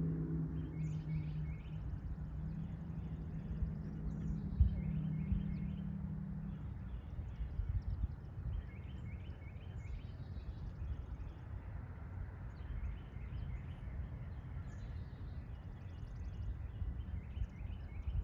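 A distant train horn holds a low note for the first several seconds and then fades away. Songbirds chirp in short, repeated phrases over a low rumble.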